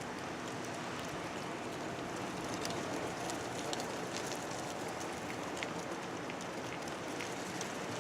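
Steady wind noise heard from inside a parked car, with faint scattered ticks; no siren tone is heard.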